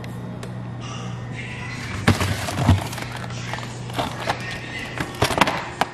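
A cardboard frozen-meal box being taken from a freezer and handled: irregular crinkles, scrapes and clicks starting about two seconds in.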